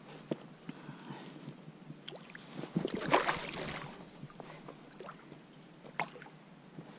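A hooked redfish (red drum) thrashing at the surface beside the kayak, with a loud splash of water about three seconds in. Smaller water sloshes and light knocks come before and after it.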